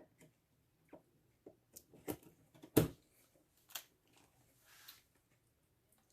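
A handful of short clicks and taps as a RAM stick is handled and pressed into its motherboard slot, the two loudest about two and three seconds in.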